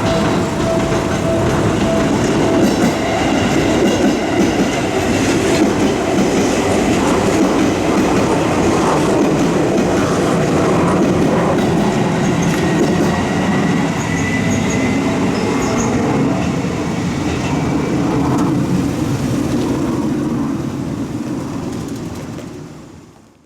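Electric train on the Seibu line passing a level crossing: a loud, steady run of wheels on the rails with clickety-clack, and a high wheel squeal around the middle. The sound fades out near the end.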